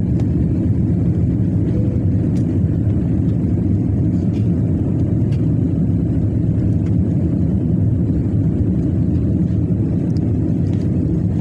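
Steady cabin noise of a jet airliner climbing just after takeoff: engines at climb power and rushing air, heard from inside the cabin as a loud, even, low rumble.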